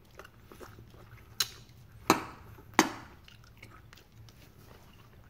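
Someone eating from a ceramic plate with a metal fork, with quiet chewing and three sharp clicks of the fork on the plate, the first about a second and a half in and the next two less than a second apart.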